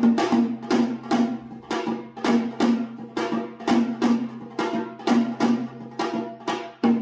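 Background music with a steady percussive beat, about three struck notes a second over a held low note.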